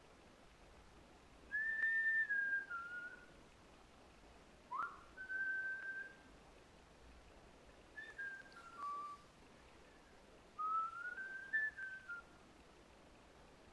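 Whistling: four short phrases of clear notes, each a second or two long, some stepping down in pitch and one gliding up, with pauses between them.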